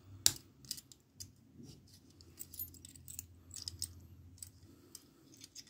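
A key on a ring being worked into a warded padlock: small scattered metal clicks and the jingle of the other keys, with the sharpest click about a quarter second in.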